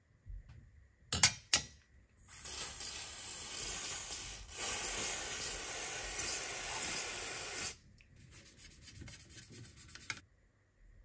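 Two sharp clicks, then an aerosol degreaser spraying in a long hiss of about five seconds, briefly broken about halfway. A toothbrush then scrubs the degreased metal part in quick, rhythmic strokes.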